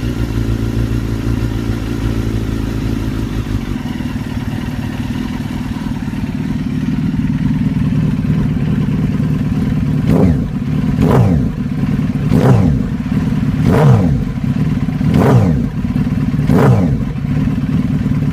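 2001 Suzuki GSX-R1000 inline-four breathing through a titanium silencer that is nearly a straight pipe. It settles to a steady idle, then from about ten seconds in the throttle is blipped six times, each rev rising and dropping back to idle.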